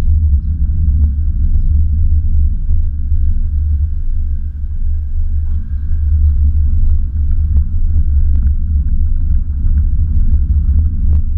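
Steady low rumble of a car rolling over a cobblestone street, with a few faint scattered knocks.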